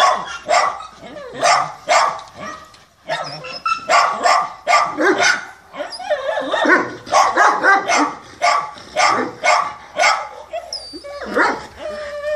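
A dog barking over and over in short, sharp barks, about two or three a second, with a brief pause about three seconds in.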